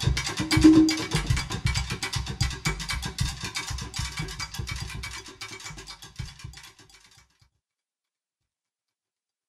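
Background music with a steady beat, fading out around six to seven seconds in and then cutting to silence.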